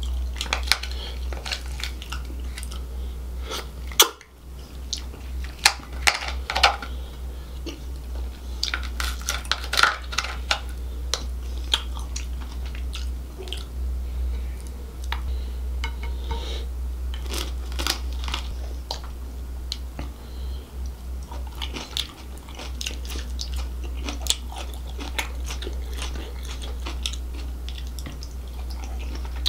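Close-miked chewing and wet mouth sounds of eating crab and lobster in thick gravy, with many crunches and clicks as shell pieces are bitten and sucked; one sharp loud click about four seconds in. A steady low hum runs underneath.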